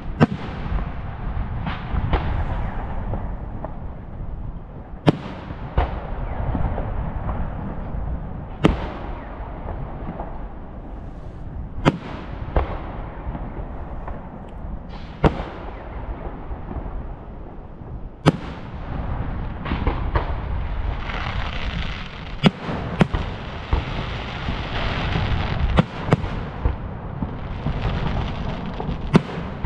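Fireworks display: aerial shells bursting with sharp bangs every few seconds, each trailing off in an echo, over a constant low rumble. The crackling thickens in the second half, with several bangs close together.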